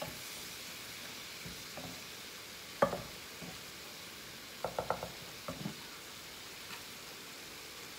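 Spice paste frying in a pan with a steady, faint sizzle as it is cooked down until its water is gone, while wooden spatulas stir and knock against the pan. A sharp knock comes about three seconds in and a quick run of four clicks near five seconds.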